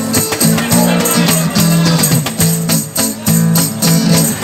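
Music with a steady beat and held bass notes that change in steps.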